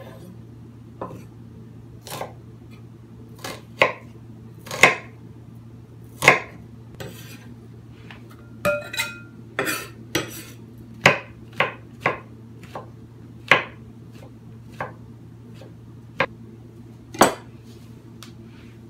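Chef's knife cutting and chopping an onion on a bamboo cutting board: irregular sharp knocks of the blade against the wood, about one a second, over a steady low hum.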